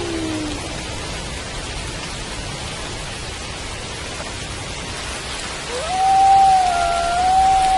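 Steady rain, with wolves howling over it: a howl glides down and dies away in the first moment, then a new long howl starts about six seconds in, rising quickly and then held at one pitch.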